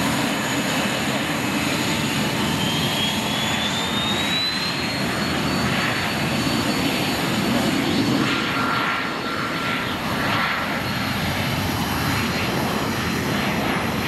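Twin Williams FJ44 turbofans of a Cessna CitationJet CJ2+ spooling up for takeoff: a whine climbs in pitch a couple of seconds in and then holds steady over a continuous jet roar.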